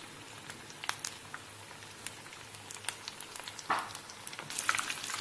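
Bread-wrapped chicken and cheese rolls deep-frying in hot oil: a steady sizzle with scattered crackling pops. It grows louder and busier near the end as a wire skimmer moves through the oil to lift them.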